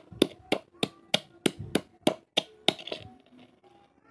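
Wooden pestle pounding in a wooden mortar: a steady run of thuds, about three a second, that stops a little under three seconds in.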